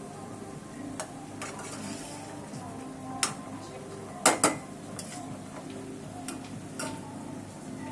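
A spoon stirring dhal in a cooking pot, clinking against the pot in scattered sharp knocks. The loudest are two knocks in quick succession around the middle.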